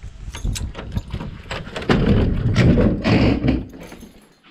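Keys rattling and a brass padlock clicking as it is unlocked on an old wooden door, then a loud rough scraping rumble lasting nearly two seconds from about two seconds in as the door is opened.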